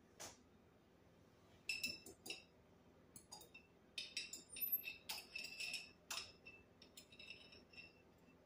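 A metal fork clinking against a glass jar of sliced banana peppers as slices are fished out: groups of light clinks, each with a short glassy ring, about two seconds in and again through the second half.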